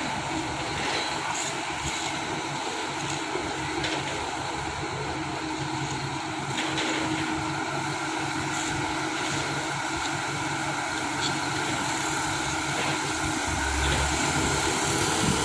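Heavy diesel engine running steadily, with a few light clicks or knocks over it and a slight rise in level near the end.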